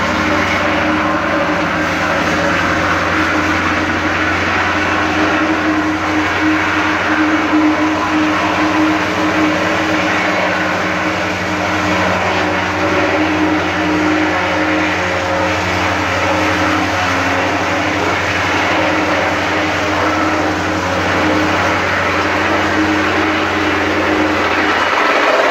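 Small single-cylinder petrol engine of a vibrating plate compactor running steadily while the plate is worked over newly laid interlocking concrete paving blocks, settling them into place.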